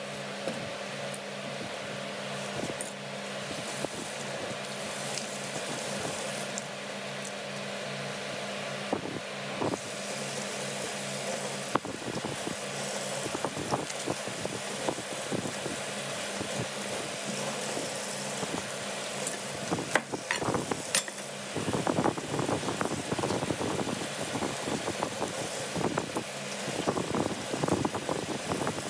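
Crisp lettuce leaves being torn and snapped apart by gloved hands, with a run of crackling and rustling that comes thickest in the last third, over a steady background hum.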